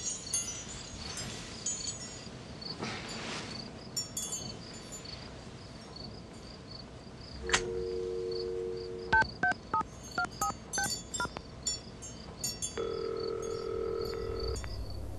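Wind chimes tinkle over a steady chirping at first. Then a telephone handset is lifted with a click, a dial tone sounds for under two seconds, a quick run of touch-tone key beeps dials a number, and a single ringback tone follows.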